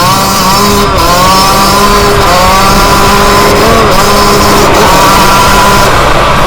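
Yamaha YZ125's two-stroke single-cylinder engine revving hard under load, its pitch rising repeatedly as the throttle is worked through the gears.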